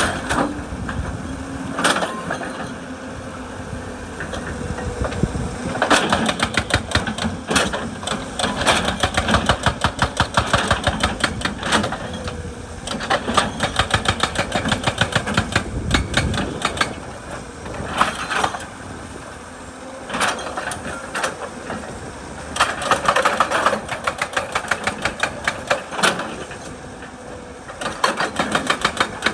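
Excavator-mounted hydraulic breaker hammering rock in several bursts of rapid, evenly spaced blows, with short pauses between, over the excavator's running engine.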